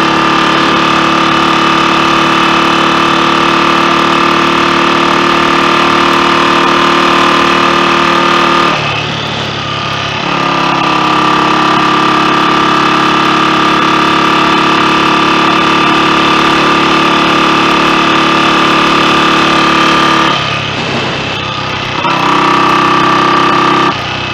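Freshly rebuilt Royal Enfield Continental GT 250 single-cylinder four-stroke engine pulling steadily on the road. Its note drops away twice, about nine and twenty seconds in, then picks up again, and drops once more at the very end.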